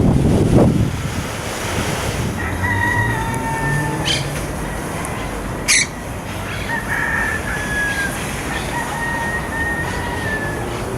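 Rooster crowing: three long, drawn-out calls in a row. A single sharp click sounds a little past halfway.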